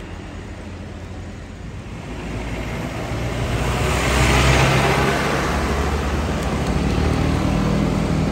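Road traffic passing: a vehicle swells past about four seconds in, then the diesel engine of a Mitsubishi Fuso Canter truck loaded with sugarcane runs steadily as the truck approaches and draws level.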